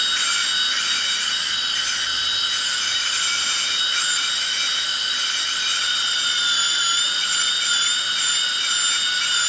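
Dental drill (handpiece) running continuously with a steady high-pitched whine, its pitch wavering slightly now and then.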